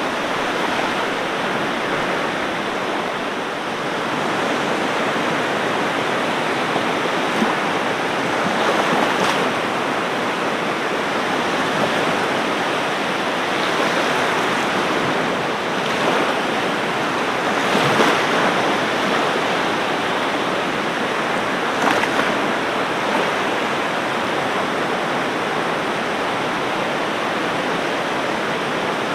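Ocean surf washing onto a beach: a steady rush of water with a few brief louder splashes as waves break.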